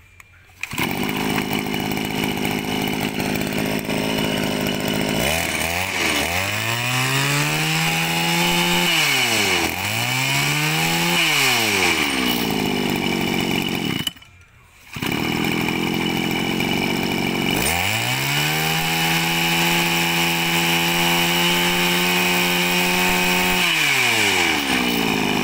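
Small two-stroke engine of a Mitsubishi TL231 brush cutter (32 mm bore, 23 cc) catching about half a second in and idling, then revved in short throttle blips and held at high revs. It cuts out for under a second around the middle, then idles, is held at high revs for several seconds, and drops back to idle near the end.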